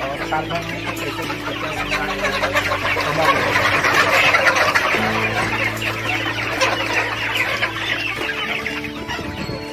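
A large flock of several hundred chickens clucking all at once, a dense chatter of overlapping calls that is loudest around the middle.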